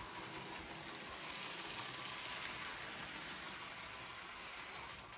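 Hornby OO gauge Toby the Tram Engine model running along the track with its two coaches: a steady whir of the small electric motor and wheels rolling on the rails.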